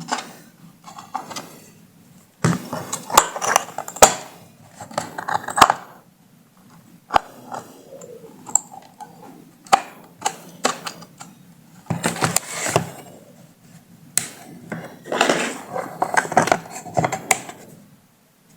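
Handling noise from taking apart a Bluetooth speaker: scattered sharp clicks and clinks of small metal parts and tools, with stretches of scraping and rattling.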